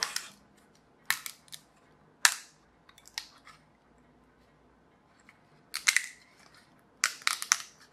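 Yellow 3D-printed PLA part being flexed as its printed support material snaps off, giving sharp plastic cracks and clicks. Single snaps come at intervals, with a quick cluster of cracks near the end.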